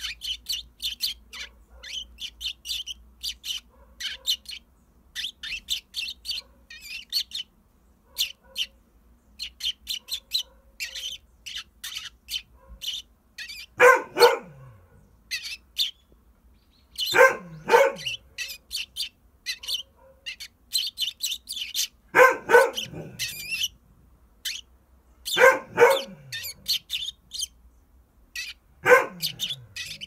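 Eurasian tree sparrow chirping in quick, constant runs of short high notes, answered from about halfway on by a dog barking in five short bursts of two or three barks, each a few seconds apart and louder than the chirping.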